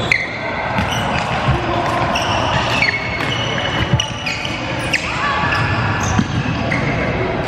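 Badminton rally: several sharp racket hits on the shuttlecock about a second apart, with sports shoes squeaking on the court floor between them. Echoing hall with background chatter.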